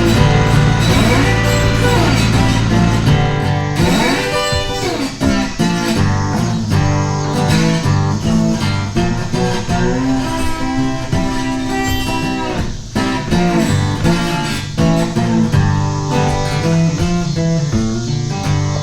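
Background music led by guitar, in a bluesy style, fading out near the end.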